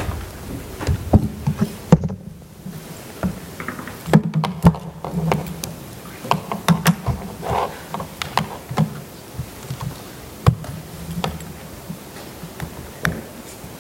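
Irregular taps, clicks and knocks of a laptop and its display cable being handled and plugged in on a lectern, picked up close by the lectern microphone.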